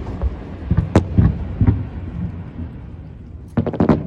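Aerial fireworks bursting: a few sharp bangs in the first two seconds, then a quick rapid run of crackling pops near the end.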